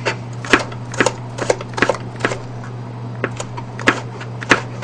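Chef's knife slicing a bell pepper on a plastic cutting board: irregular knocks of the blade hitting the board, about two a second, with a short pause a little past the middle. A steady low hum runs underneath.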